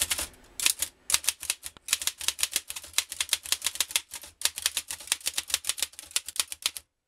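Oliver No. 9 typewriter being typed on: a quick run of key strikes, several a second, broken by short pauses about a second in and about halfway through, and stopping just before the end.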